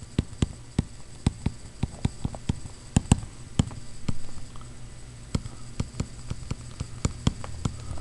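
Stylus tapping and clicking against a tablet screen while handwriting, in irregular sharp taps a few times a second, over a low steady hum.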